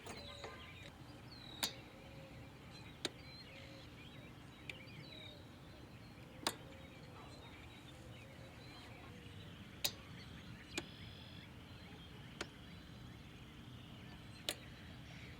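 Faint outdoor background with a few short, high chirps and about eight sharp, isolated clicks at irregular intervals of one to three seconds.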